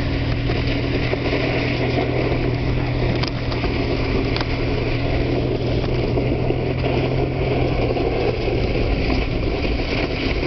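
A car driving along a snowy street: a steady engine hum under a constant rush of tyre and wind noise, the hum dropping away about eight seconds in.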